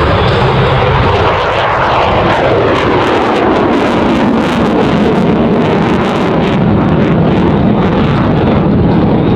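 Lockheed Martin F-22 Raptor's twin Pratt & Whitney F119 turbofans, loud jet noise as the fighter flies its display, with a falling pitch about two seconds in and a crackling rasp through the middle.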